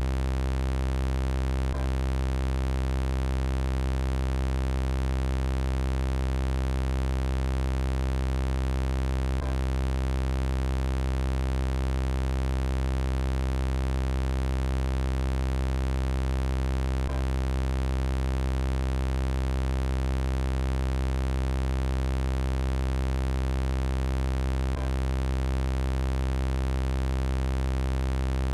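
Steady synthesized electronic buzz with many even overtones, the looped robot voice sound effect, holding one pitch. A faint click marks each repeat of the loop, about every seven and a half seconds.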